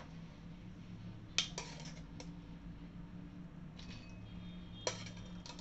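A metal ladle scooping boiled meatballs and clinking against the cookware: a quick cluster of sharp clicks about a second and a half in and another sharp click near the end, over a steady low hum.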